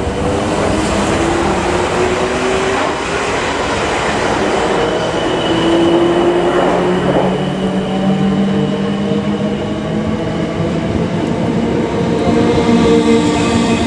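Class 455 electric multiple unit moving along the platform: a steady rumble of wheels on the rails under a motor whine whose tones shift in pitch, with some clickety-clack of wheels over rail joints.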